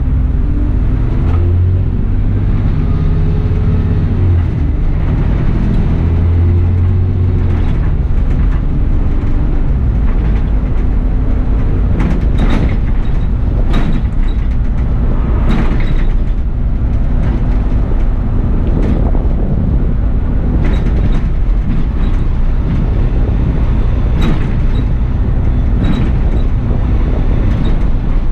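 Bus driving, heard from the driver's position: a steady low engine and road rumble, the engine note rising and shifting as it pulls away in the first several seconds, then steady running with scattered rattles and clicks from the bus body.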